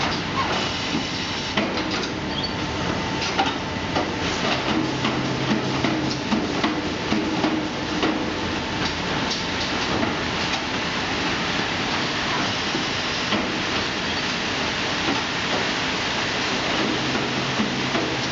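Automatic bag-filling and sealing line running: steady machinery noise with frequent sharp clacks and knocks from the moving mechanisms. A low hum comes in twice, about four and a half seconds in for under two seconds and again near the end.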